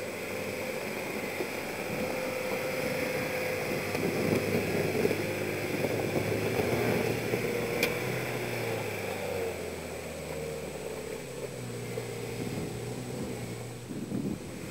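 Engine of a small off-road vehicle running, its sound swelling over the first half and easing off after, with a single sharp click about eight seconds in.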